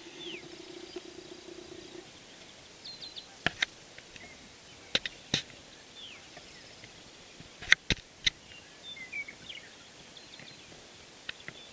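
Small birds chirping in open country, with several sharp, loud clicks scattered through, some in quick pairs.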